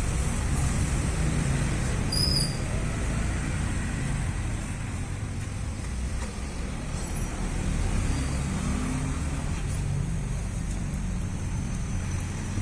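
Steady low rumble of motor-vehicle noise, with a brief high chirp about two seconds in.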